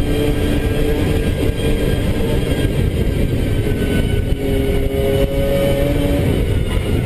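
Race car engine heard from inside the cabin at speed, running hard at steady revs with only small shifts in pitch, over a heavy rush of road and tyre noise on a wet track.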